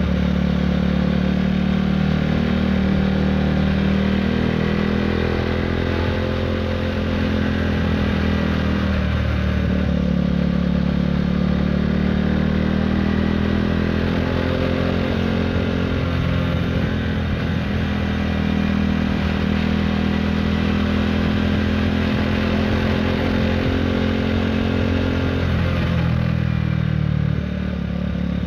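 KTM Duke 390 single-cylinder engine running through an Akrapovic racing-line exhaust while riding, its note rising and falling gently with the throttle through the bends and easing off briefly near the end, over wind and road noise.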